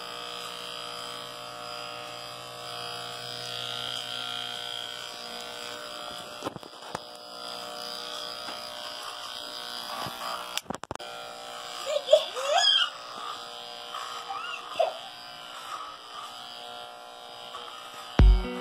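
Corded electric hair clipper buzzing steadily as it cuts hair, with a couple of sharp clicks midway.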